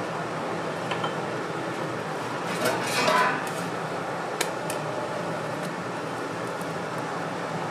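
Metal cooking utensils clinking and scraping at a hotteok griddle, with a louder clatter about three seconds in, over a steady hum.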